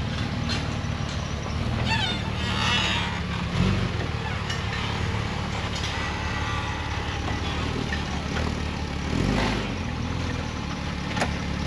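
Off-road vehicle engine running steadily at low revs, with a slight swell in level about nine seconds in.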